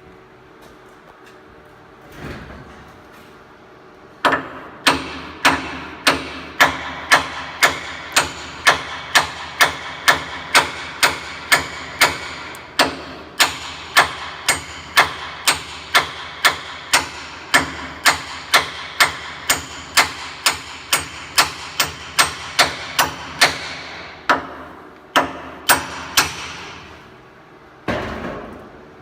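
Hammer striking a steel pivot pin on a JCB 530 telehandler, a steady run of sharp metallic blows about two a second, each ringing briefly, as the pin is driven. The blows start about four seconds in and go on for some twenty seconds, with a few more after a short break.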